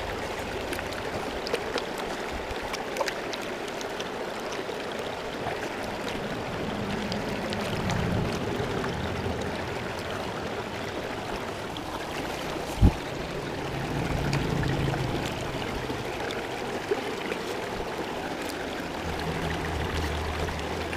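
Creek water running steadily over rocks, with water swishing in a plastic gold pan as it is shaken to settle black-sand concentrates, and scattered small clicks. One sharp knock about two-thirds of the way through.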